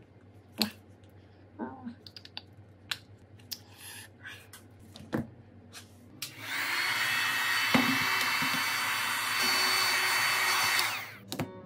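A few light clicks and taps of small tools on a phone, then about six seconds in a hot-air gun switches on, blowing with a steady loud hiss and a high whine for about five seconds before cutting off.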